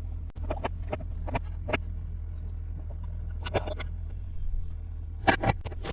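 Small plastic toy pieces clicking and tapping as they are handled, about eight short sharp clicks, most in the first two seconds and near the end, over a steady low hum.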